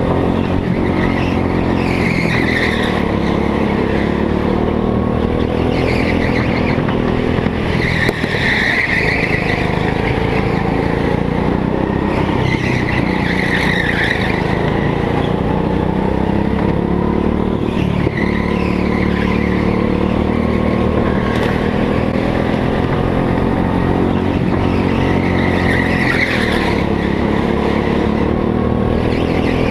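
Go-kart engine heard from on board, its pitch rising and falling as the kart accelerates down the straights and lifts for corners, with the tyres squealing several times as it slides through the bends on the smooth indoor track surface.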